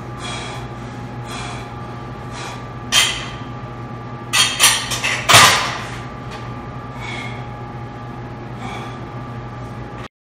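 A weightlifter breathing hard in short, sharp exhales spaced about a second apart, with a few louder, sudden sounds in the middle, over a steady hum. The sound cuts off abruptly just before the end.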